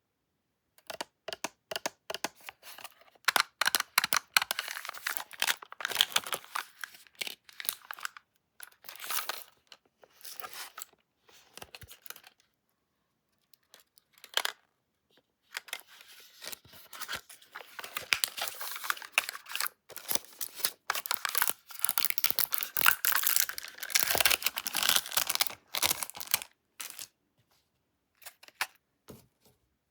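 Candy packaging being torn open and crinkled by hand, in irregular bursts of crackling with a pause of a couple of seconds around the middle.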